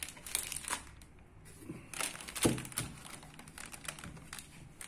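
Plastic anti-static bag crinkling under a motherboard as it is handled and turned over on it, in two bouts of rustling, with a single knock about two and a half seconds in that is the loudest sound.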